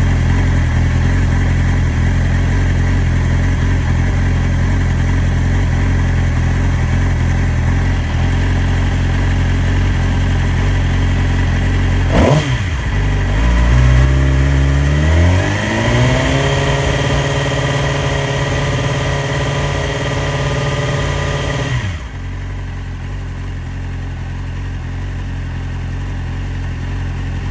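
2012 Yamaha YZF-R6's 599 cc inline-four idling, an idle the owner calls rough despite new coils, new plugs and good timing on a rebuilt engine. About halfway through the revs climb over a few seconds and hold steady at a higher speed, then drop suddenly back to idle.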